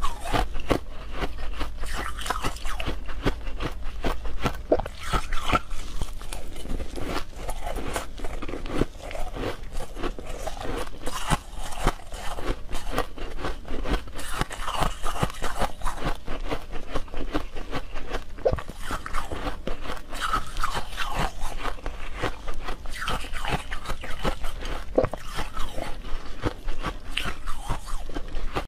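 Frozen milk ice being bitten and chewed: a dense, continuous run of crisp crunches and crackles.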